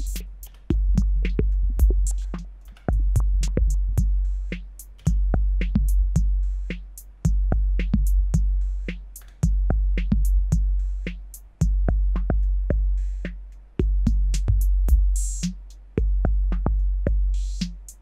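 Looping drum-machine beat with a deep sustained bass note restarting about every two seconds, run through an Elektron Analog Heat MKII whose frequency-panning filter is swept by its LFO. The level sinks over each two-second cycle, and two short hissy bursts come near the end.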